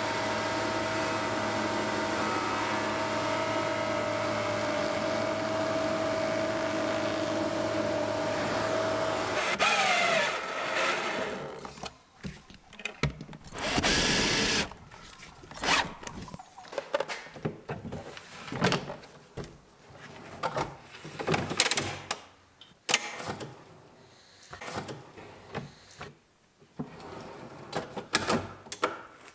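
A spindle moulder with dust extraction runs steadily while a board is fed along its fence, then stops abruptly. After that, a cordless drill runs in short bursts driving screws, with clicks and knocks of metal drawer runners being fitted.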